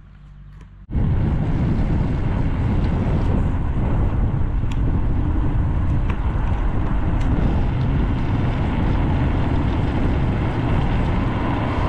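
Wind buffeting the microphone of a camera riding on a moving bicycle: a loud, steady, deep rush of air that starts abruptly about a second in.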